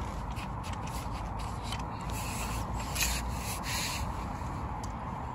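Scraping and rubbing noises, thickest about two to four seconds in, over a steady low rumble.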